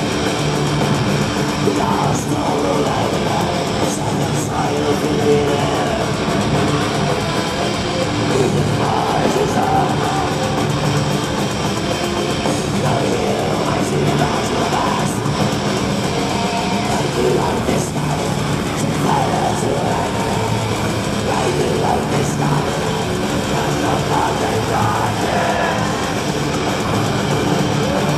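Black metal band playing live: loud, dense distorted electric guitars with bass and drums, heard from within the crowd in a concert hall.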